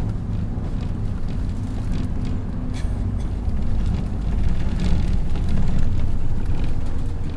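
The inside of a city bus on the move: a steady low engine and road drone, with scattered light rattles. It swells slightly a little past the middle.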